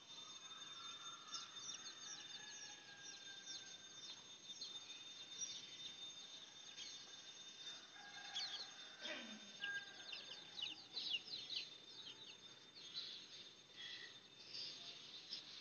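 Faint outdoor ambience of birds: many short, high chirps throughout, with chicken calls among them, including a falling call about nine seconds in. Under them runs a steady high-pitched tone.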